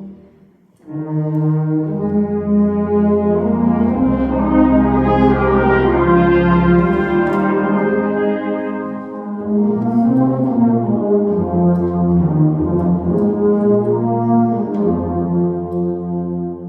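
Concert band playing, with the brass section prominent in sustained chords over a deep bass line. The music breaks off briefly about half a second in, then the band comes back in, low brass first.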